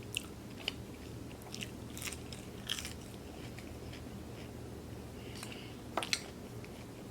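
Close-up chewing and biting of food, with scattered sharp wet mouth clicks and smacks; the food is a gyro and French fries.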